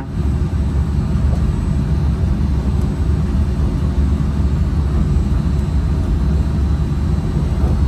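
Disneyland Monorail train running along its beamway, heard from inside the front nose cab: a steady, even low rumble from its rubber-tyred running gear and drive.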